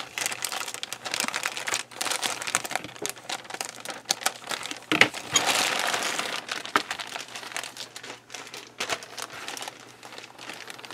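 Clear plastic bag wrapped around a plastic model kit sprue, crinkling and crackling irregularly as it is handled, loudest about halfway through.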